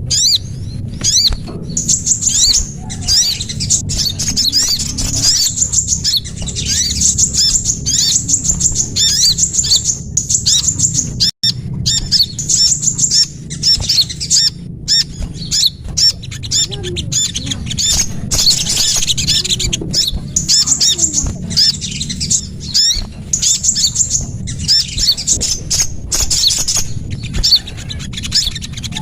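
Bird-lure call recording of small songbirds: rapid, high-pitched chirps and twittering trills repeating continuously, over a steady low hum. There is a momentary break about eleven seconds in.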